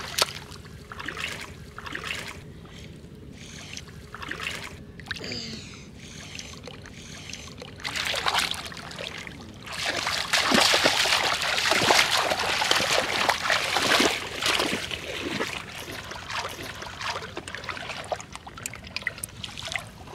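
Shallow water splashing and sloshing as bare hands grab at a fish and legs wade through it, in irregular strokes. From about eight seconds in the splashing gets heavier and denser, with running steps through the water, then eases off.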